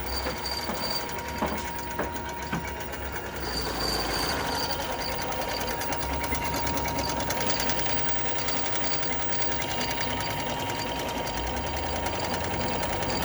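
Sewing machine making an abnormal noise: a few separate clicks, then from about three and a half seconds in it runs steadily with a fast, even ticking and a steady whine.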